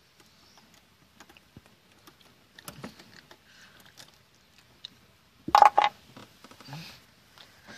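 Small clicks and light rattles of hands twisting the frayed wire strands of a throttle cable back together at the carburetor linkage, with a louder brief burst of handling noise about five and a half seconds in.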